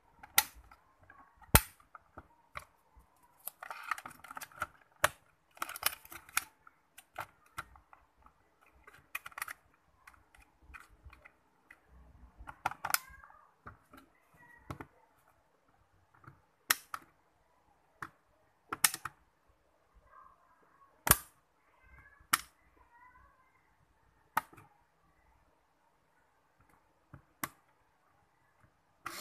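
Konica K77 compact film camera being handled and worked by hand: about ten sharp plastic clicks at irregular intervals, with rubbing and rustling of fingers on the body in between.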